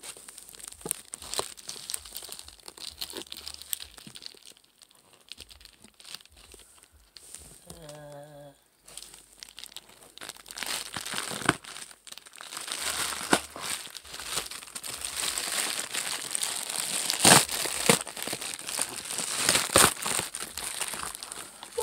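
Wrapping on a gift being torn and crumpled by hand: irregular crinkling and tearing, growing louder and busier in the second half.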